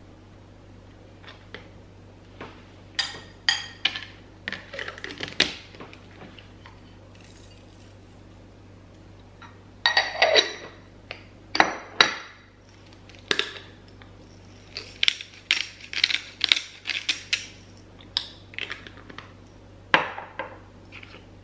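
A spoon scooping Greek yogurt and clinking against a glass mixing bowl: irregular clusters of sharp taps and clinks, the loudest about halfway through ringing briefly.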